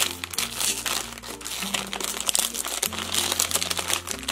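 Plastic blind bag being torn open and crinkled by hand, a dense run of crackles throughout.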